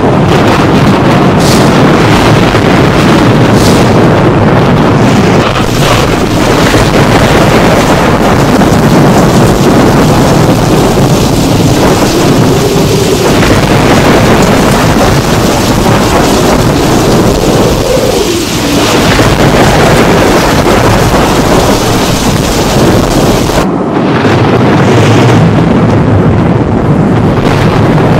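Thunderstorm: loud, continuous rumbling thunder with rain falling. The sound shifts abruptly near the end.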